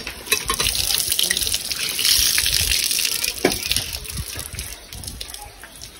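Water pouring from a cast-iron hand pump's spout and splashing onto the stone platform as a mango is rinsed under the stream. The flow is heaviest in the middle and dies away over the last couple of seconds.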